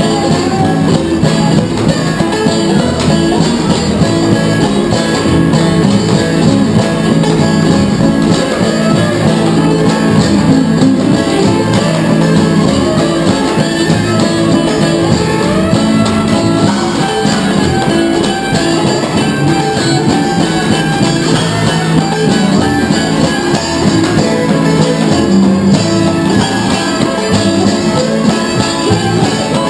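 Live acoustic string band playing steadily: upright double bass, banjo and fiddle, with a seated percussionist keeping time.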